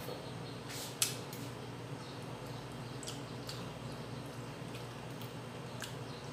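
A person eating fish by hand: a few scattered small clicks and mouth smacks, the sharpest about a second in, over a steady low hum.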